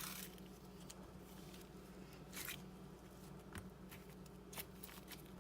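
Faint, scattered squishes and small clicks of a firm butter slime being squeezed and handled.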